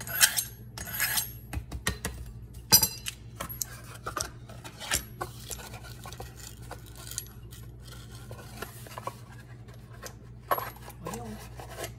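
A kitchen knife drawn through a handheld Rada knife sharpener, two quick scraping strokes in the first second or so. A loud metallic clink follows about three seconds in, then light clicks and knocks as the knife and sharpener are handled and set down.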